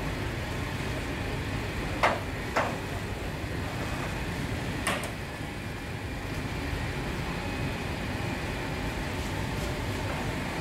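Steady hum of bakery machinery, broken by three sharp clanks of perforated metal baking trays being handled as loaves are tipped off them: two close together about two seconds in, and one near five seconds in.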